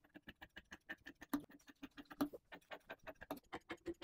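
Large tailor's shears snipping through layered cloth: a quick, even run of short crisp clicks, several a second, with a couple of louder snips near the middle.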